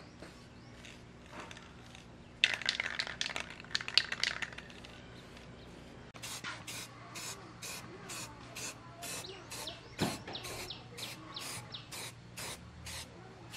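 Aerosol spray-paint can sprayed in quick short bursts, about three a second, starting about six seconds in. A few seconds of rattling or rubbing come before it, and there is a single knock partway through the bursts.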